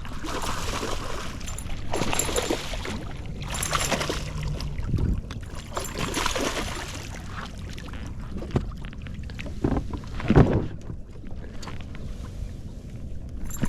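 Water splashing and rushing as a hooked bass is fought to the side of the boat, then several sharp knocks and thumps on the boat, the loudest about ten seconds in.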